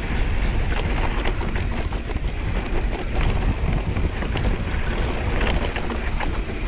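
Specialized Stumpjumper mountain bike riding fast down a dry dirt singletrack: knobby tyres rolling on dirt, with frequent small knocks and rattles from the bike over bumps and wind buffeting the microphone.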